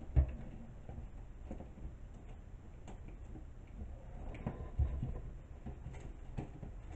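Light clicks and small rattles of thin floral wire and a metal cut-out sign being handled against a wire wreath frame. There is a sharp knock just after the start and a duller knock about five seconds in.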